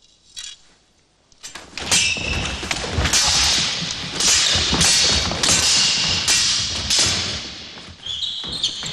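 Two sabres clashing rapidly and repeatedly as the duellists fence, with stamping feet thudding on a wooden floor. The clashes begin about a second and a half in. Near the end a blade rings briefly.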